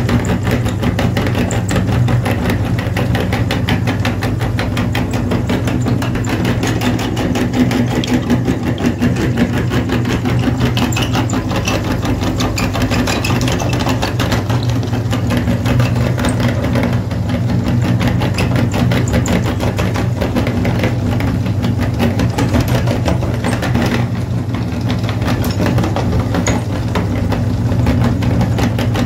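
Motor-driven metal meat grinder running steadily with a constant low hum, its auger crunching sticks of coloured chalk and pushing them out as powder.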